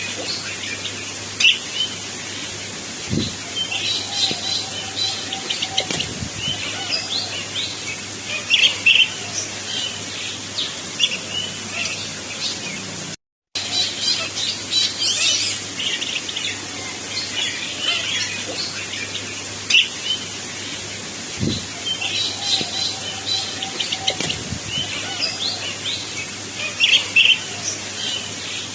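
Oriental magpie-robin (kacer) singing: a string of quick, varied chirps, whistles and trills, with a faint steady hum underneath.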